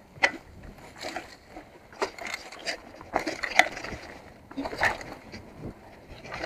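Mountain bike rattling down a rough dirt downhill trail: tyres rolling over the dirt, with irregular sharp clacks as the bike and chain hit bumps.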